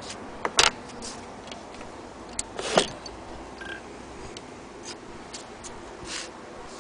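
Scattered clicks and knocks from handling a hand-crank Singer 28K sewing machine and its wooden case, in no steady rhythm. A sharp double click comes about half a second in, the loudest knock just before three seconds in, and fainter ticks follow.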